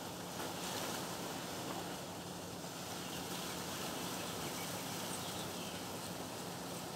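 Steady background noise: an even hiss with a faint low hum, and no distinct sound events.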